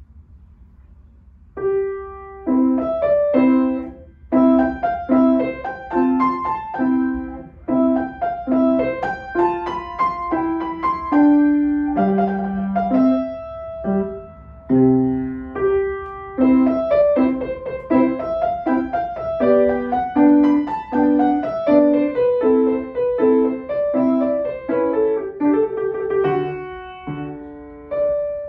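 Grand piano played solo: after a short quiet pause the playing starts about a second and a half in and runs on in a steady stream of repeated chords under a moving melody.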